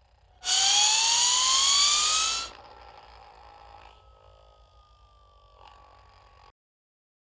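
A comedy sound effect: a loud, hissy whine rising steadily in pitch for about two seconds. It drops to a faint tone that sinks slowly for about four seconds, then cuts off suddenly.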